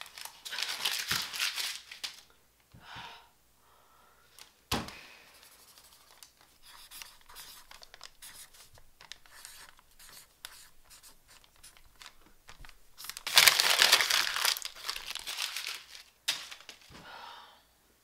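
Notebook paper being torn and crumpled: a short burst about half a second in, and again, loudest, for about three seconds from about thirteen seconds in. In between, a marker scratches faintly on the paper, and there is one sharp knock about five seconds in.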